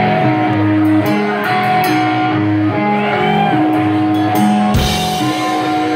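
Live rock band playing a repeating riff on distorted electric guitar and bass, with a few cymbal hits and a loud drum and cymbal crash about five seconds in.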